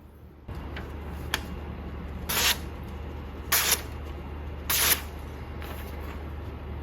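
A Shun kitchen knife's edge is drawn across a kangaroo leather strop in brief hissing strokes, three about a second apart and a fourth at the very end, over a steady motor hum that starts about half a second in. This is the final stropping step, removing the leftover burr to leave the edge razor sharp.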